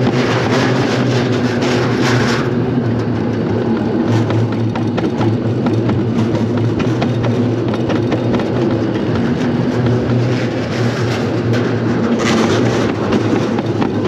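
Wiegand summer toboggan sled running down its stainless-steel trough: a steady rumble with a dense rattle, and a brighter hiss rising about two seconds in and again near the end.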